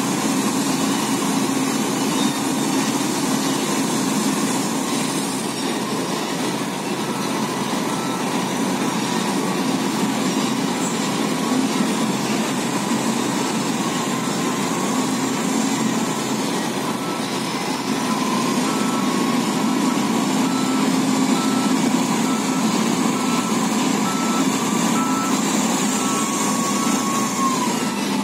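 Diesel engines of a dump truck and a wheel loader running steadily, with a backup alarm beeping over and over through the second half.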